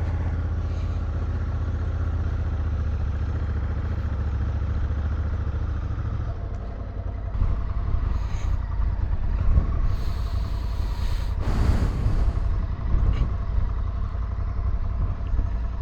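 Parallel-twin adventure motorcycle engine running as the bike rides up a steep gravel track. The note is steady for about six seconds, then drops and changes, and in the second half irregular knocks and rattles come through over the rough ground.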